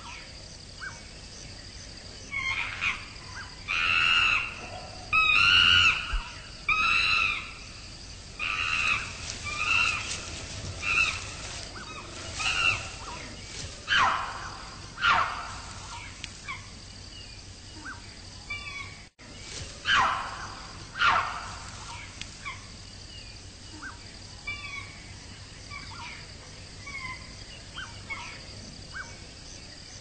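Wildlife sound: a long string of short, loud animal calls, some sliding down in pitch, repeating every second or so and growing fainter near the end, over a steady high insect drone.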